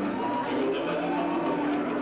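Live rock and roll band music, heard through a worn videotape recording.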